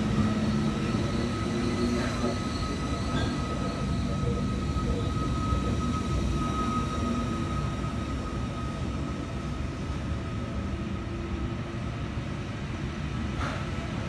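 V set double-deck electric train rolling slowly past along the platform: a steady low rumble of wheels and running gear with a thin, steady high-pitched whine over it, and a brief sharp click near the end.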